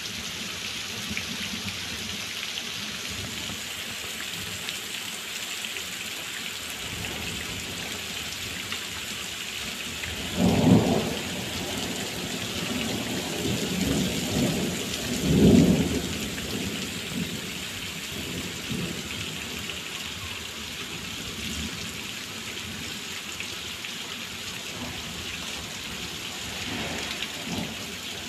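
Heavy rain pouring steadily onto wet paving, with thunder: a short rumble about ten seconds in, a longer, louder one a few seconds later, and fainter rumbles near the end.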